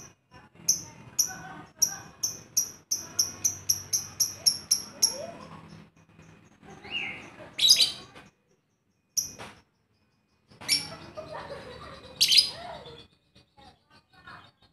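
Lovebird chirping: a run of short, high chirps that quickens to about four a second and breaks off, then several louder, shrill calls a second or two apart.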